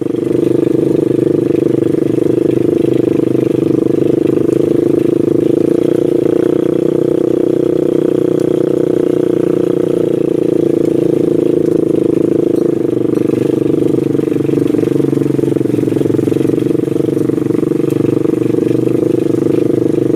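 Small ATV engine running at steady revs as the quad drives through grass.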